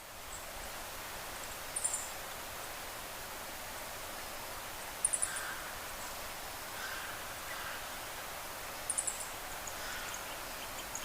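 Outdoor ambience with a steady hiss and birds calling: three short bursts of high, rapid chirps, with fainter, lower calls in between.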